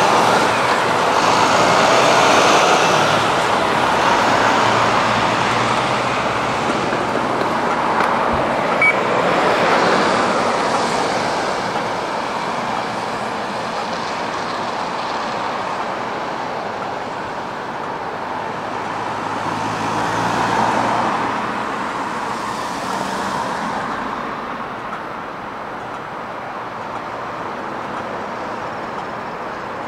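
Road traffic: a steady rush of passing cars and other vehicles, with several swelling past and fading, louder in the first half.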